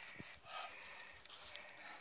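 A person breathing hard in short, faint breaths, with a few soft low thumps.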